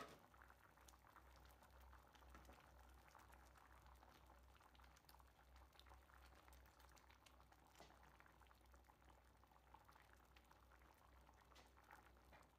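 Faint bubbling and popping of kidney beans in a thin sauce simmering over medium heat in an open frying pan, over a low steady hum.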